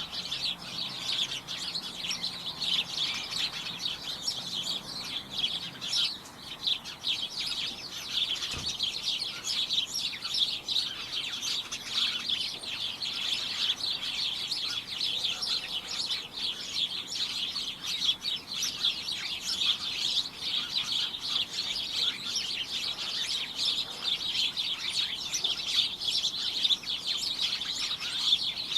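A flock of birds chirping all at once: a dense, continuous chatter of many overlapping high chirps.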